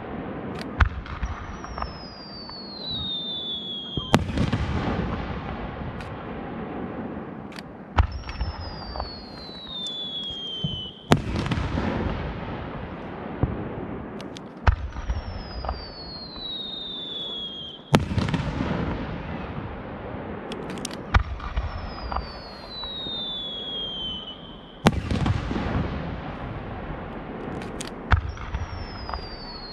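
Aerial firework shells bursting: a sharp bang about every three to four seconds, each followed by a rumbling echo, with a high whistle falling in pitch between some of the bursts.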